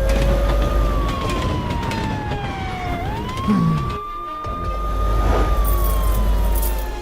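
Police siren wailing: the pitch rises quickly, holds, then slides slowly down, repeating about every four seconds, over a low vehicle rumble.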